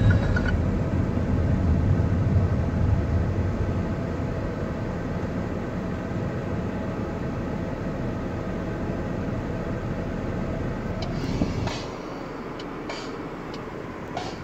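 Road and engine noise inside a moving Toyota Camry's cabin: a steady low rumble that drops quieter about twelve seconds in, with a few light clicks near the end.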